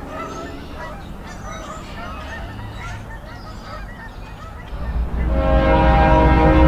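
Chirping, honking bird calls over a low rumble. About five seconds in, a louder, steady sound of several held tones starts.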